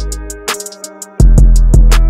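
Background music with a drum beat: deep, sustained bass notes under a steady, quick hi-hat. The bass drops out for about half a second in the middle, then comes back in.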